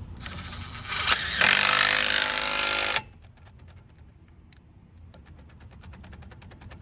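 Cordless impact wrench hammering a lug nut tight on a car wheel: it builds up about a second in, runs hard for about a second and a half, and cuts off suddenly. Faint light clicks follow.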